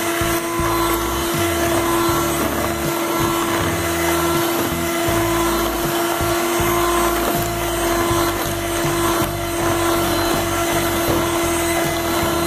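Kenwood electric hand mixer running steadily at one speed with a steady motor hum, its beaters whisking a runny cake batter of eggs, sugar, ghee and yogurt.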